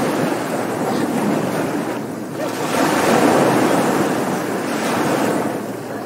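Ocean surf: a wave breaks and washes up the shore, swelling about two and a half seconds in and easing off near the end, over a steady wash of sea.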